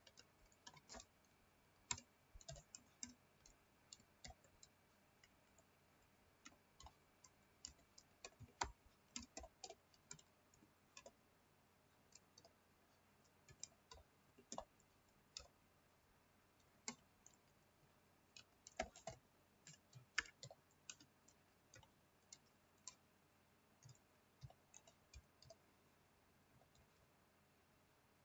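Computer keyboard being typed on: irregular, faint key clicks in short runs with pauses.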